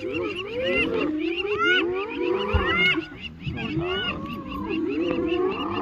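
A clan of spotted hyenas mobbing a lion: many overlapping calls that rise and fall in pitch, mixed with fast repeated chattering notes.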